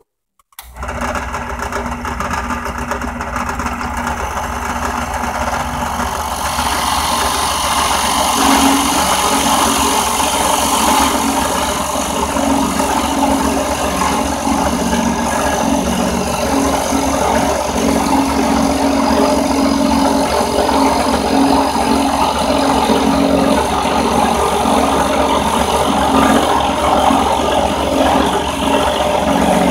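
Central Machinery 8-inch five-speed bench drill press with a 1/2 hp motor starting up and running steadily. From about six seconds in, a grinding, cutting noise builds over the motor hum as the bit bores through the workpiece.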